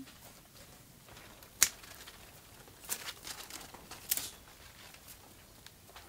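Rustling and crackling of melon vines and leaves being handled during harvest, with one sharp snap about one and a half seconds in.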